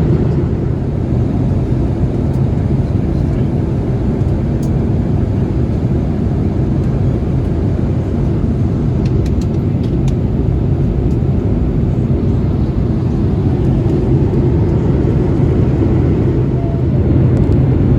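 Steady low roar of a Boeing 787-8 airliner cabin, engine and airflow noise heard from a passenger seat, holding an even level throughout.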